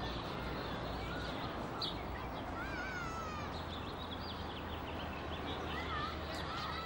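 Small birds chirping and calling: short whistled notes that glide up and down, with a quick trill about three seconds in, over a steady low background hum.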